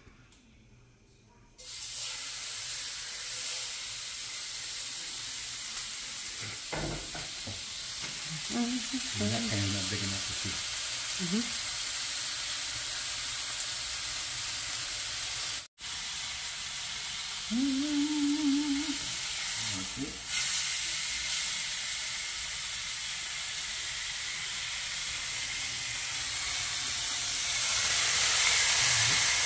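Steak searing in hot olive oil in a frying pan: a sizzle starts suddenly about a second and a half in as the meat hits the oil, then runs on steadily and grows louder near the end.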